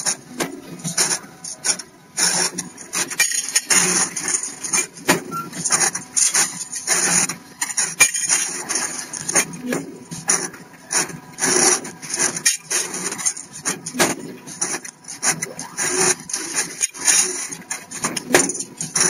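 CNC stirrup bending machine at work, with irregular clanks and scraping as steel bar runs through its straightening rollers and bending head.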